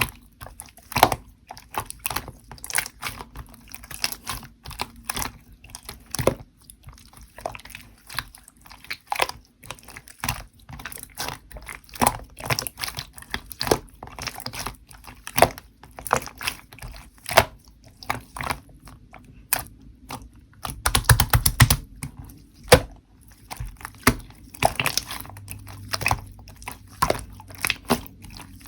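Slime being squished and pressed by hand: a dense, irregular run of small wet pops and clicks, with a louder stretch of crackling about three-quarters of the way through.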